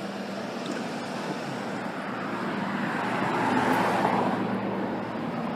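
Road traffic: a vehicle passing on the roadway, its noise swelling to a peak about four seconds in and then fading, over a steady low hum.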